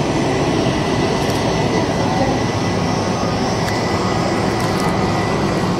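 Jet airliner engines running at taxi power: a steady rumbling hiss with a faint constant high whine.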